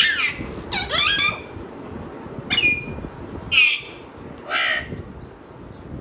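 Parrot squawking: five loud calls roughly a second apart, the first sliding down in pitch.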